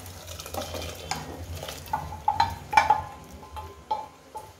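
A steel pan being scraped out with a wooden spatula and knocked against the rim of an aluminium pressure cooker as thick sambar masala is poured in: a string of irregular clinks, several with a short metallic ring.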